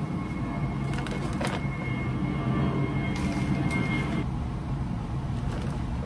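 Steady low rumble of road traffic, with a thin steady whistle-like tone in the middle for a couple of seconds and a few light knocks.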